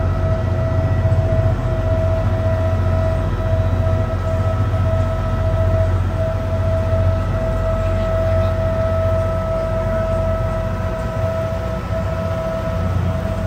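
Boat's engine running steadily, heard on board: a deep continuous drone with a steady whine above it.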